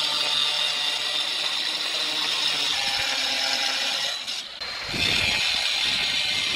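Handheld electric tile cutter running at speed, its blade grinding through a terracotta roof tile with a steady high-pitched whine. The sound dips briefly a little past four seconds, then picks up again.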